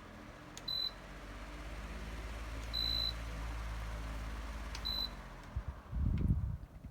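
Pelonis pedestal fan's controls beeping three times, the middle beep longer, over the fan motor's steady low hum. The hum swells after the first beep and stops shortly after the last. A short low rumble of handling follows near the end.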